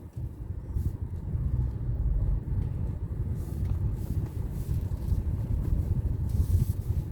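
Low, steady rumble of a vehicle travelling along a road.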